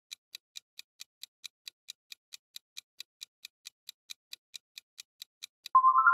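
Countdown-timer clock ticking sound effect, a quick steady tick about four to five times a second. Near the end the ticking stops and a bright synthesized chime of quickly rising notes sounds as the answer is revealed.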